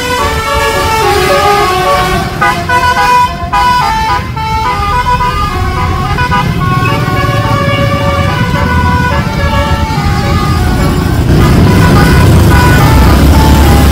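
A bus's multi-tone 'telolet' air horn playing a stepped, tune-like sequence of notes over the bus's running engine. The horn dies away about ten seconds in, and the engine rumble grows louder near the end.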